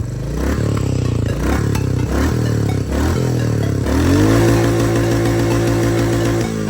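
Single-cylinder motorcycle engine on its stock exhaust being revved: a few short throttle blips, then about four seconds in a rising rev that is held high for about two seconds before dropping back.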